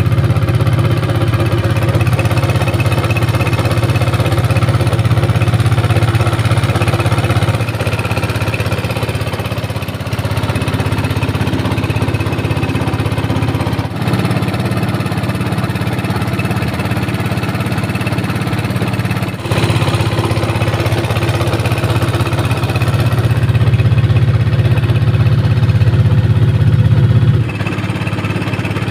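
Small fishing boat's engine running steadily while under way. Its level drops suddenly near the end.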